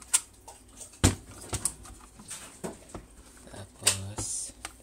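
Hard plastic and sheet-metal parts of a Mercedes 220 gear selector lever assembly clicking and knocking as they are handled and turned over: about eight sharp, irregularly spaced knocks, the loudest near the start and about four seconds in.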